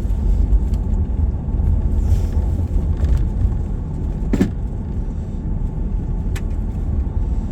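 Steady low rumble of engine and tyres heard from inside a moving vehicle, with one sharp knock about four and a half seconds in and a lighter click near the end.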